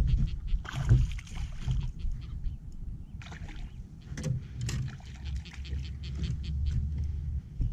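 Water splashing and sloshing around a small fishing boat while a hooked spotted bass is played in on light spinning tackle. A steady low rumble runs underneath, and a spell of splashing comes about a second in.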